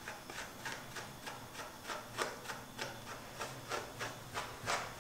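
A brush raking through a small dog's wet, tangled fur in quick, regular strokes, about three a second, each a short rasp: the knots being brushed out of the coat while it is still wet.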